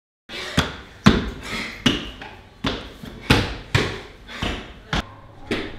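Sneakered feet running up hard stairs, about two footfalls a second, each step echoing in the stairwell.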